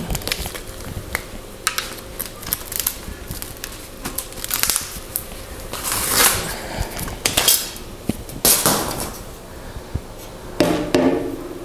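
An old, crumbling rubber bicycle tire being peeled off a spoked wheel rim by hand: a run of clicks and several short rasping scrapes. Near the end there is a brief rattle as the bare metal wheel is lifted.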